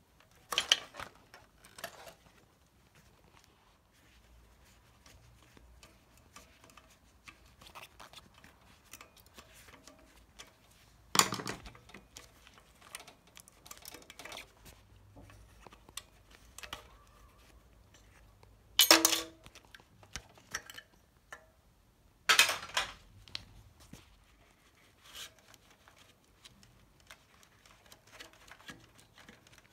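Knocks, clicks and clinks of parts being handled while a CRT television is taken apart by gloved hands: the neck socket pulled off the picture tube's electron gun, screws taken out, the deflection yoke worked loose. Four louder sharp knocks stand out, the first about a second in and the others spread through the rest, with faint rustling and small clicks between them.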